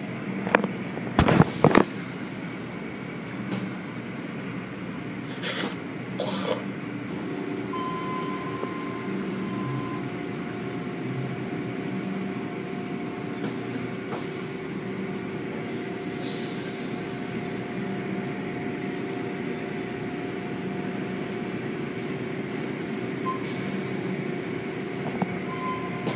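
Automatic car wash machinery running around a car, heard from inside the car: a steady mechanical drone with the hiss of water spray, and cloth curtain strips slapping over the car. Several loud knocks or slaps come in the first seven seconds, and a steady hum sets in about seven seconds in.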